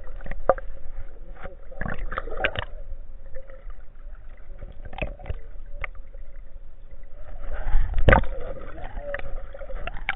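Muffled sloshing and rushing of shallow surf heard from under the water, with scattered sharp knocks and clicks and a louder surge of water about eight seconds in.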